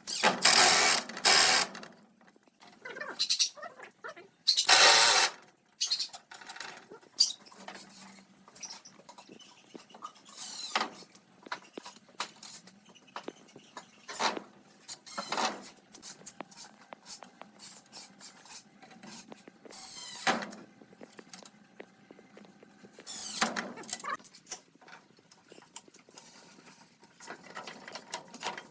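Workshop handwork sounds on wood: scattered clicks, taps and scrapes, with a few short bursts of noise, the loudest in the first two seconds and again about five seconds in.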